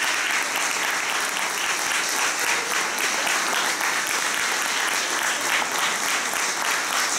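Audience applauding: many hands clapping in a steady, even stream.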